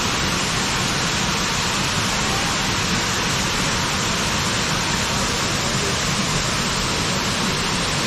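Steady, even rush of falling water: a waterfall's roar.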